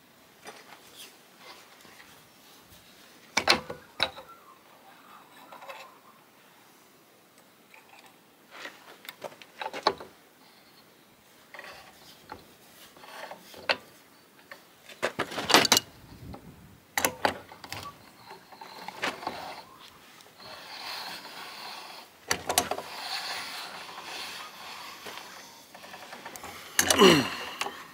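Scattered metallic clicks, knocks and scrapes as the threaded end cap of a Sealco air start valve is screwed into the valve body by hand and then snugged up with an adjustable spanner, with a louder scrape near the end.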